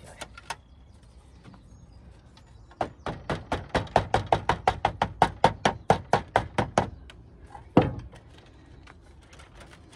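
Rubber mallet beating code 4 lead flashing against brickwork: a quick, even run of about five blows a second for some four seconds, then one more single blow about a second later. The lead is being dressed flat to take out its corrugation and sit against the wall and tiles.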